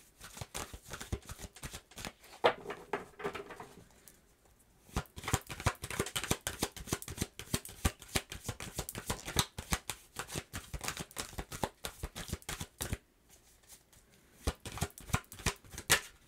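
A deck of tarot cards being shuffled by hand: a quick run of soft card flicks and slaps, with two short pauses, about four seconds in and about thirteen seconds in.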